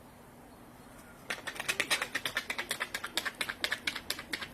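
Crisp, clicking footsteps of someone running across ice. They come as a rapid run of sharp clicks, about eight a second, starting a little over a second in.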